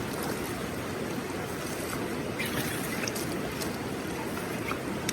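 Steady rush of a high, flooded river, with a few brief splashes of water a little over two seconds in.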